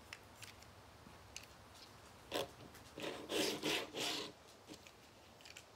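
Small plastic toy figure being handled: a few light clicks, then a brief rasp about two and a half seconds in and a louder stretch of plastic scraping and rubbing in three pulses from about three to four seconds in.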